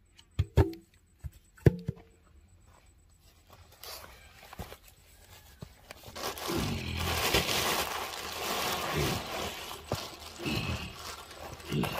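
Plastic sheeting crinkling and rustling as a body wrapped in it is pushed and rolled over grass, louder from about halfway in, after two sharp knocks near the start.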